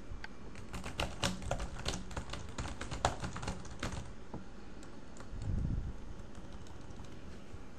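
Computer keyboard being typed on quickly, a rapid patter of key clicks for about four seconds, then a few scattered key presses. A brief low rumble comes about five and a half seconds in.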